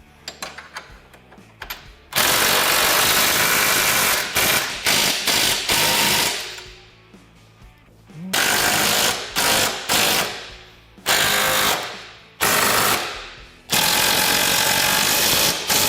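Impact wrench tightening suspension bolts: a few light clicks, then from about two seconds in five long bursts of hammering, each trailing off as the wrench lets go.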